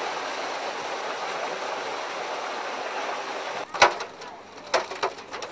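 Steady rush of churning, splashing water as carp crowded into a harvesting net thrash and are scooped out with a landing net. About four seconds in the splashing stops and a sharp knock is heard, then two lighter knocks near the end.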